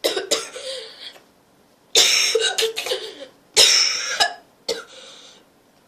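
A sick person's coughing fit: three hard bouts of coughing about two seconds apart, with a smaller cough near the end.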